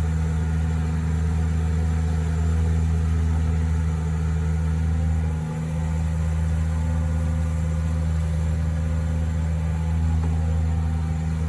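An engine running at a steady speed, a constant low hum with no revving.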